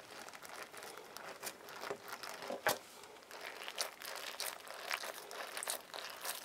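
Fingers squeezing and kneading a slime-filled latex balloon stress ball, giving a faint, irregular crinkling with scattered small clicks of the rubber under the fingers, one sharper click a little before the middle.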